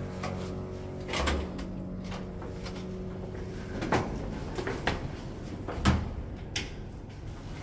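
A hotel room door being opened and walked through with a hard-shell suitcase: a handful of separate clicks and knocks from the door latch, the door and the luggage, the loudest about four and six seconds in.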